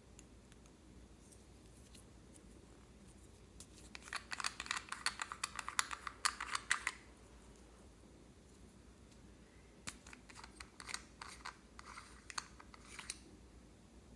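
Slime being squeezed and worked by hand, giving rapid crackling clicks in two bursts of about three seconds each.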